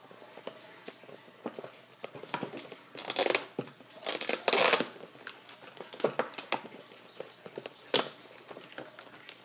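Plastic packaging crinkling and tearing as a sealed box is worked open by hand, with scattered clicks. There are louder rustling bursts about three and four and a half seconds in, and a sharp click near eight seconds.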